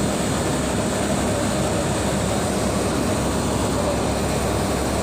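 Steady, unbroken machine noise of running HVAC equipment, with a faint steady hum under it.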